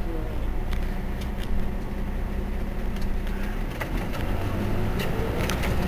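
Mercedes-Benz Citaro C2 city bus engine idling while the bus stands still, a steady low hum that grows somewhat deeper and fuller past the middle.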